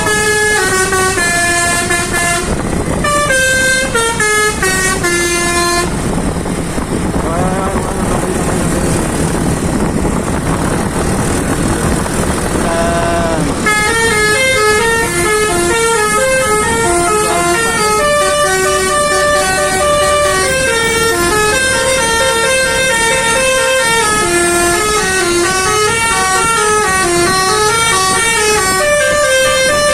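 Indonesian bus basuri telolet horn playing a tune: a quick run of held notes stepping up and down. From about six seconds in, the tune gives way for several seconds to a noisier stretch with gliding pitches, then the horn melody resumes and keeps going.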